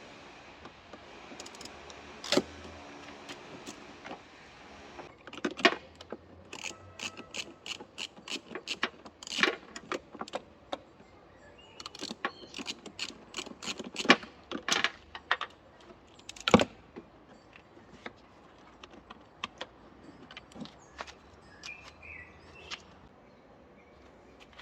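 Metal tools and parts being handled: irregular clicks, clinks and small knocks, with a handful of louder knocks scattered through.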